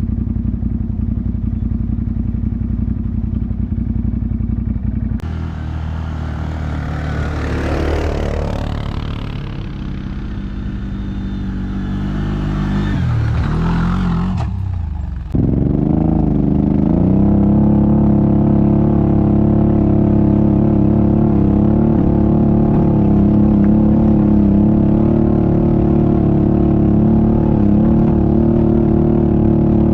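ATV engines running: a steady engine sound. About five seconds in it changes abruptly to a noisier stretch with the revs rising and falling. About fifteen seconds in it changes abruptly again to an engine pulling at steady revs after a brief rise.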